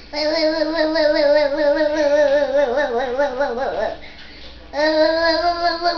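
A voice singing or howling in long wavering notes: one long note falling away at its end, then after a short pause a second, steadier note.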